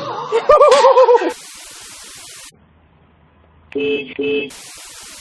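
A horse whinnying: one call about a second long with a fast wavering, falling pitch. It is followed by a burst of static-like hiss, then two short steady tones and a second burst of hiss.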